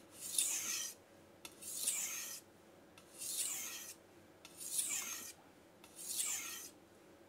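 Chef's knife blade being stroked along a fine 6000-grit King S-1 waterstone with slurry on it: five even sharpening strokes, each a hiss of just under a second, about one every second and a half.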